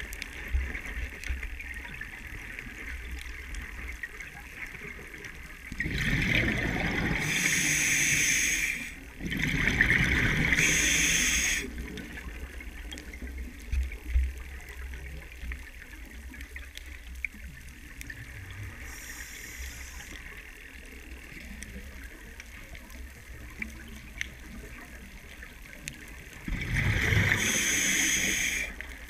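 Scuba diver breathing through a regulator underwater: three long, loud gushes of exhaled bubbles, about 6 s in, about 10 s in and near the end, with quieter bubbling and water noise in between.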